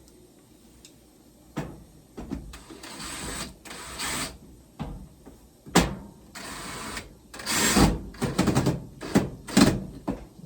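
Screws being driven into the dryer's sheet-metal panel during reassembly: four short whirring runs, with sharp clicks and knocks of the panel and tool in between and a quick cluster of knocks near the end.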